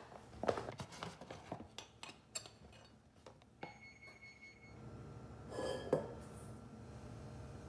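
Stainless steel measuring cups clicking and clinking against a stainless steel mixing bowl as flour and then sugar are tipped in. About halfway through one tap leaves a short metallic ring, and a louder clatter comes near the end.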